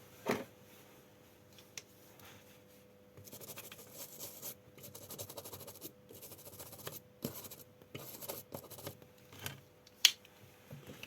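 Short scratchy scrubbing strokes in runs over several seconds, as the freshly soldered joints on the adapter's circuit board are cleaned after soldering. A light click near the start and a sharper one near the end.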